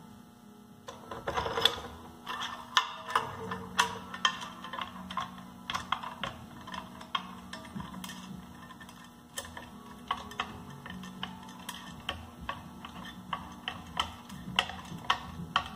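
Irregular light metallic clicks and clinks, several a second, as an automotive alternator's housing is worked onto its pivot and adjusting bolts and spacers on an aluminium adapter plate.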